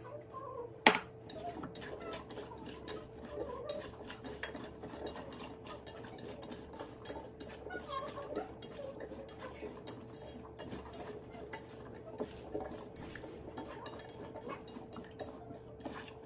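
Cut potatoes being tossed and stirred with oil and seasoning in a metal pot, with many small clinks and scrapes against the pot, over a faint steady hum. A single sharp knock about a second in, the loudest sound.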